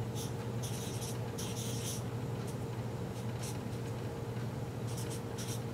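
Felt-tip marker scratching across paper in a series of short strokes as numbers are written by hand, over a steady low hum.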